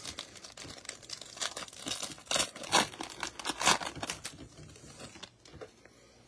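Foil wrapper of a Panini Prizm basketball card pack being torn open and crumpled, a dense crackling that is loudest for a couple of seconds in the middle, then dies down as the cards come out.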